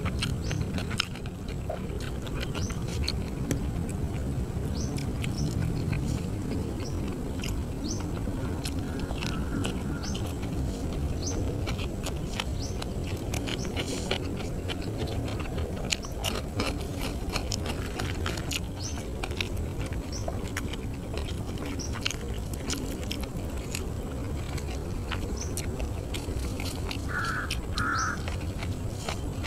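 Close-mic'd eating of grilled catfish by hand: many short wet clicks of chewing and lip-smacking over a steady low rumble. Two brief high tones sound close together near the end.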